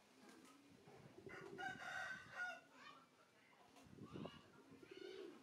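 A rooster crows once about a second in, for a little over a second. Domestic pigeons coo low before and after the crow.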